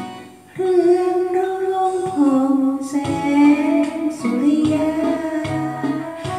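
A woman singing a Thai luk thung song over a karaoke backing track with bass and guitar. The voice comes back in about half a second in, after a short dip in the music.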